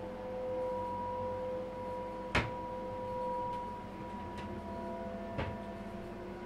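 Background music of low held droning tones that swell and fade, with a sharp click about two and a half seconds in and a softer knock about five and a half seconds in.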